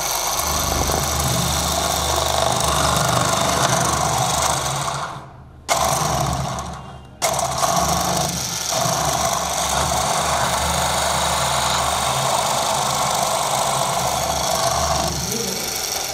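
Motor-driven three-spindle drill head of a uPVC profile machine running and boring into a white uPVC window profile. The motor winds down twice around the middle and starts again sharply each time, then winds down near the end.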